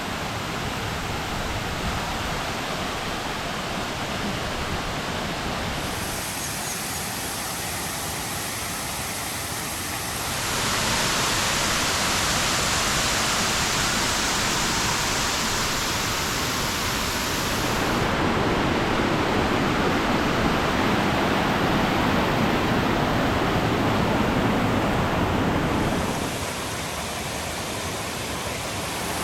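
Waterfall: a steady rush of falling water. It gets abruptly louder about a third of the way in, stays loud through the middle and drops back near the end.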